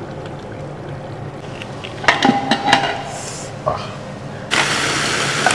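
Earthenware pot and plate clinking and knocking together as they are handled, with a brief ringing tone. About four and a half seconds in, a steady hiss starts suddenly.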